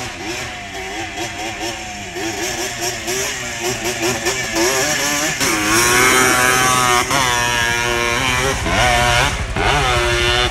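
Quad bike (ATV) engine running and revving, its pitch rising and falling repeatedly, louder from about halfway through.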